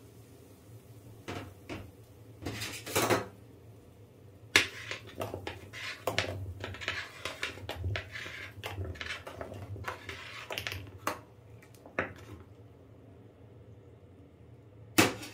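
Metal spoon stirring sago in a stainless steel saucepan of boiling water, clinking and scraping against the pan in quick, irregular strokes that stop near the end.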